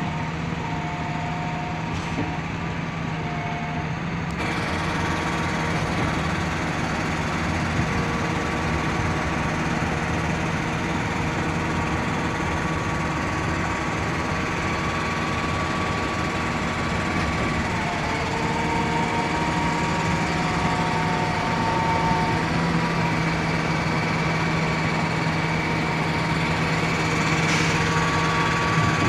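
Everdigm 36ZX truck-mounted concrete pump running steadily, its diesel engine held at a constant speed with higher whines coming and going over it. It gets a little louder about four seconds in.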